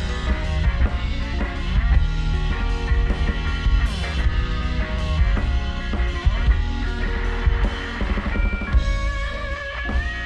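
Instrumental rock band playing: a drum kit keeps a steady beat under electric guitars, in a psychedelic rock style.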